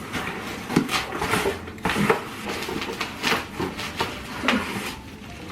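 Cardboard product box and packaging being handled and opened by hand: irregular scraping, rustling and light knocks.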